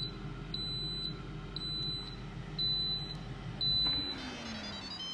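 Instant Pot Duo Crisp beeping about once a second, high short beeps that signal the air-fry cycle has ended. Under the beeps the appliance hums steadily, and near the end a low tone falls in pitch as the air-fryer lid's fan winds down.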